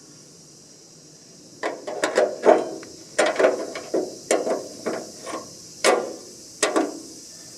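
Hammer tapping on car-body sheet metal: a string of about fifteen irregular, fairly dull taps starting about a second and a half in and stopping near the end, some in quick clusters.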